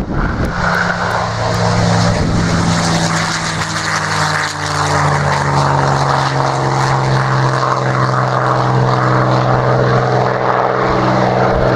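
P-51D Mustang's Packard Merlin V12 engine and propeller running loudly as the fighter goes past, the engine note dropping slightly in pitch about four seconds in.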